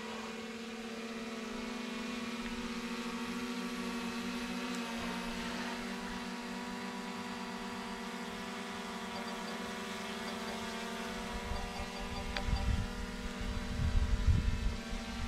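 Small quadcopter drone (DJI Mini 3) hovering and descending, its propellers giving a steady pitched hum. In the last few seconds, low gusty rumbles on the microphone grow louder as the drone comes close.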